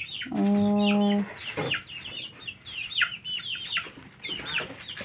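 Chickens kept inside the house calling with quick, high, falling peeps over and over. About half a second in, a person gives a short held hum that is louder than the birds.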